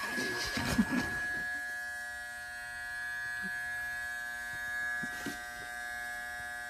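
Electric hair clippers running with a steady buzz, with some rustling from handling in the first second or so.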